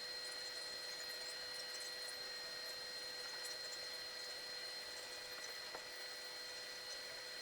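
Steady airflow hiss with a constant fan whine from a hot air rework station, blowing on a laptop logic board to melt the solder under the CPU during its removal.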